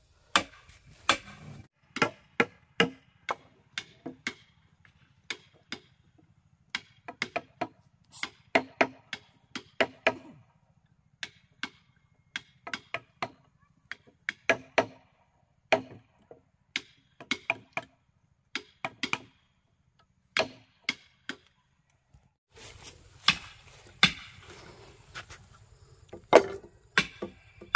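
Hand tool chopping into wooden timber of a house frame: irregular sharp blows, one to three a second in runs, with a pause of about a second and a half in the last third.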